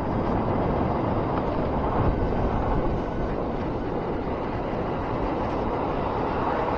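Honda Fireblade motorcycle riding at a steady, moderate pace along a street: a continuous rumble of engine and road noise, with no change in pace or revs.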